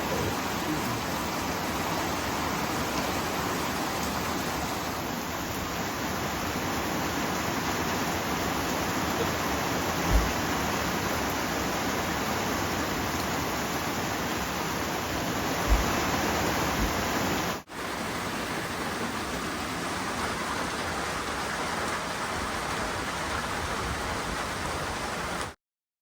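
Steady rain falling, an even hiss of water with two brief low thumps partway through. The rain breaks off for a moment, comes back, then cuts off abruptly near the end.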